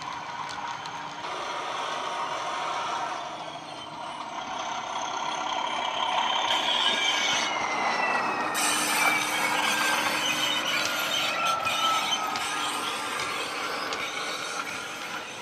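Bachmann Class 37 model locomotive running past with a train of wagons, its LokSound decoder playing a Class 37 diesel engine sound through small onboard speakers. The model's wheels clatter on the track, and the sound grows louder through the middle as the locomotive passes close. A whistling whine falls slowly in pitch partway through.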